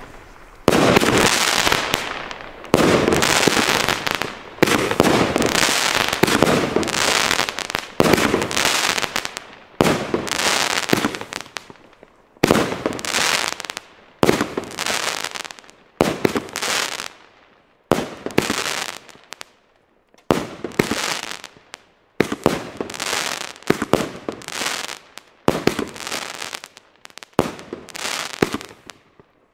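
A firework battery firing shot after shot, roughly one every two seconds, each a sudden bang from a shell bursting into white stars, fading away before the next shot.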